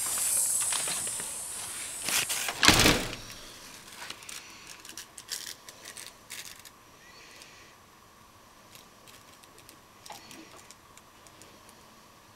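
A toddler clambering into a jogging stroller's seat: rustling, then a loud thump and rattle of the stroller frame about three seconds in, followed by faint small clicks and rustles.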